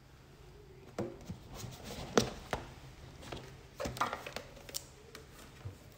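Handling noise: a scattering of short knocks and clicks as objects are picked up and put down on a table, the sharpest about two seconds in.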